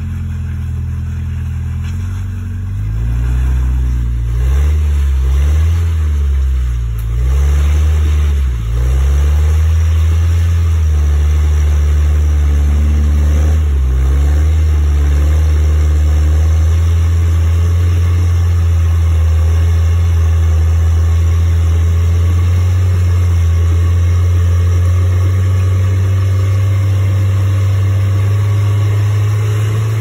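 Rock crawler buggy's engine revving up and down several times in the first nine seconds or so, then running loud and steady as the buggy climbs a steep rock ledge.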